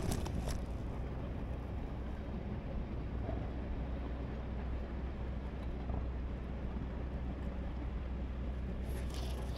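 Steady low wind rumble on the microphone, with a couple of faint clicks in the first half second.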